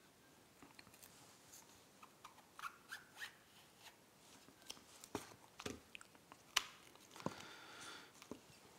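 Faint scraping and clicking of a thin plastic gadget case as its back panel is slid on and pressed into place, with a few sharper snaps in the second half.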